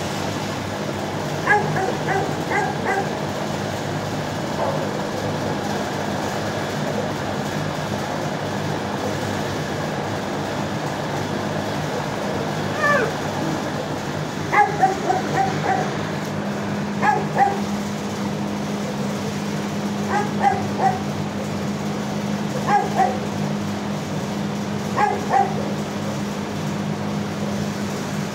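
Dogs in shelter kennels barking in short clusters of two or three barks every few seconds, over a steady low hum.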